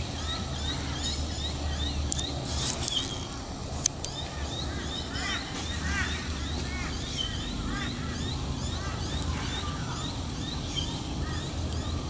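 Wild birds chirping and calling, many short quick chirps scattered through, over a steady low rumble.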